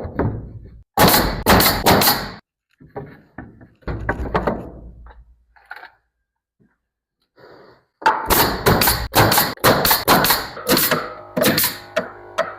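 Runs of sharp knocks and thuds as wood boards are fastened to a wall: a short cluster about a second in, then a longer, quicker run of strikes near the end.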